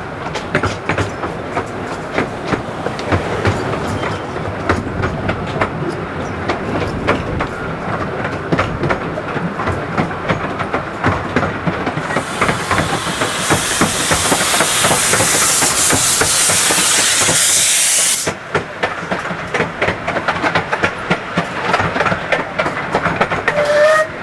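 Miniature railway carriage rattling and clicking over the track, drawn by a small steam locomotive. About halfway through, a loud steam hiss starts, runs for about six seconds and cuts off suddenly.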